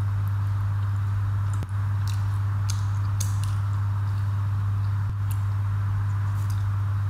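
A steady low hum runs throughout and is the loudest sound. Over it come faint soft clicks and smacks of eating by hand, fingers picking through rice and fish on a plate and chewing, clustered around two to three seconds in and again near five seconds.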